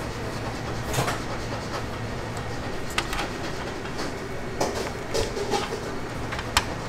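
Restaurant ambience: a steady background hum with a handful of sharp, scattered clicks and knocks, like utensils or metal tools on hard surfaces.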